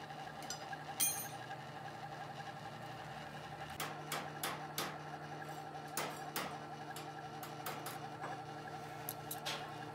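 Steady hum of workshop machinery with scattered light metallic clicks and taps from tools being handled: one sharp click about a second in, then a run of lighter ticks through the second half.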